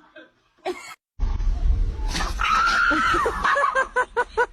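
A long, high-pitched scream of about a second over a loud low rumble, followed by quick rhythmic bursts of laughter.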